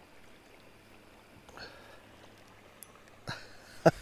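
Faint steady background hiss, broken near the end by two short, sharp sounds, the second one loud.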